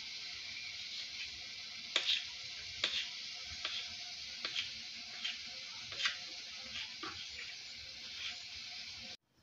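Knife cutting dough into small pieces, the blade tapping on a granite countertop about once a second, over a steady hiss.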